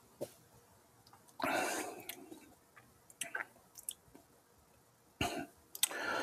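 A man clearing his throat and breathing out sharply a few times, with small lip-smacking clicks, as he tastes a milkshake just sipped through a straw. The longest, loudest throat sound comes about a second and a half in, with shorter ones a little after three seconds and near the end.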